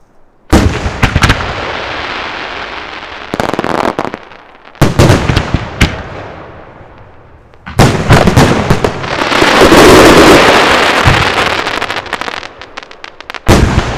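Large aerial firework shells bursting overhead: five heavy bangs, each dying away slowly. Around two-thirds through, a loud rushing hiss swells and fades, and a patter of crackles comes just before the last bang.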